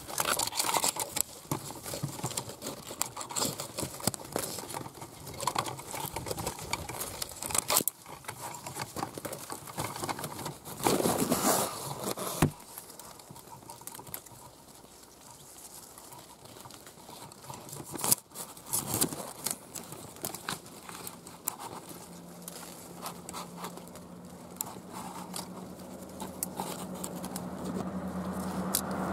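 Leaves and twigs rustling and crackling against a camera as it is pushed up through hedge branches, with handling knocks on the microphone. A low steady hum grows near the end.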